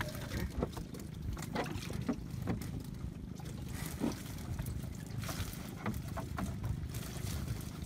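Wet fishing net being hauled and handled over the side of a small wooden boat: water trickling and dripping off the mesh, with scattered light knocks and clicks against the hull over a steady low rumble.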